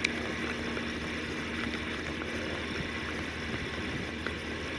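Spinning reel being cranked steadily to bring in a small hooked whiting, its gears whirring faintly under a steady hiss of wind and surf.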